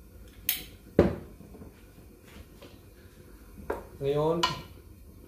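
Kitchen clatter from a glass water bottle being put down and a wooden spoon going into an aluminium pot. There is a sharp clink, then a louder knock about a second in, and a few fainter clicks after that.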